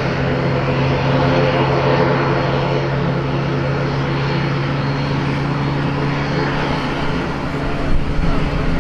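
Airliner engines running at taxi power: a steady low droning hum over a broad engine roar.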